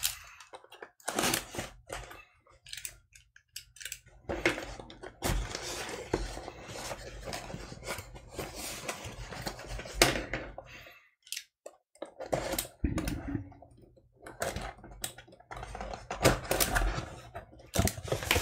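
A cardboard shipping box being slit open with a utility knife and pulled open by hand: scraping of the blade on tape and cardboard, rustling of the box flaps, and scattered clicks and knocks against the desk, in irregular bursts with short pauses.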